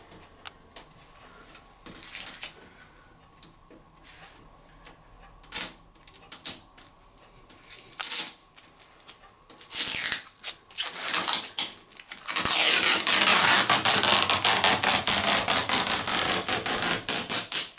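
Protective plastic film being peeled off a new washing machine's panels. Scattered crinkles and rustles come first, then in the last third a long, unbroken crackling peel of several seconds that stops abruptly.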